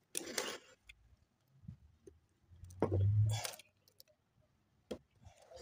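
Scissors and a small spring retaining key scraping and clinking against a BMW M52 oil pump body as the key is pushed into place. There is a short scrape near the start and a louder knock and rub about three seconds in.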